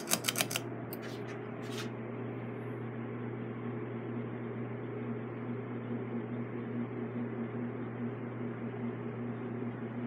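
PCI spinner ceiling fan running steadily: a low motor hum under the rush of air from the blades. A few sharp clicks come in the first two seconds.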